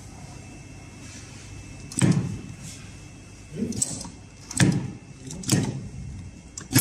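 Five dull knocks and clacks about a second apart as webbing is positioned and clamped in the work clamp of an automatic heavy-duty sewing machine, over a low steady hum.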